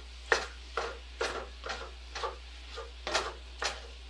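A silicone spatula scraping and chopping through crumbled breakfast sausage in a cast iron skillet, in short strokes about two a second, breaking up the meat as it cooks.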